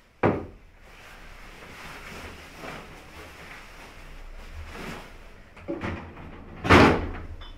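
Rustling of a long coat being taken off, with a sharp knock just after the start and a few soft knocks. Near the end comes a louder knock at the wooden desk.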